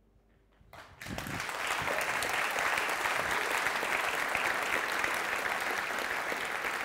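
Audience applause. It begins about a second in, after a brief near-silence, and then holds steady as many people clap together.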